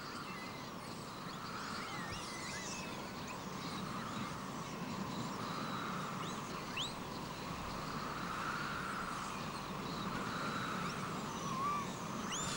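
Faint outdoor nature ambience: scattered short, high chirps over a steady hiss that swells and fades about every two seconds.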